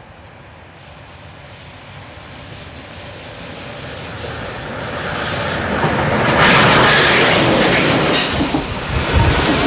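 Passenger coaches rolling past on curved track, growing steadily louder as they come close. High-pitched wheel squeal sets in near the end.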